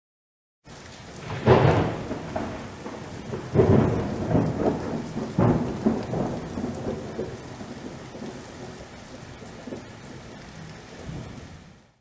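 Deep rumbling sound effect: three heavy booms in the first six seconds over a rushing noise that slowly fades and stops just before the end.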